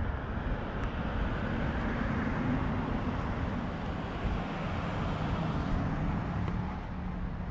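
Cars passing on the road beside a moving bicycle, their tyre and engine noise mixed with wind rushing over the camera microphone as the bike rolls along.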